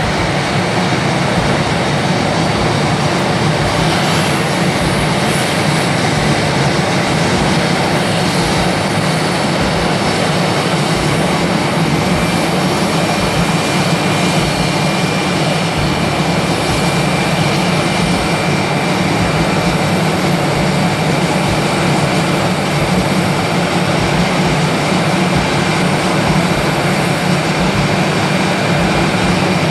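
Airbus A320 jet engines heard from on board: a loud, steady rush of engine and air noise, with a thin steady whine coming in partway through.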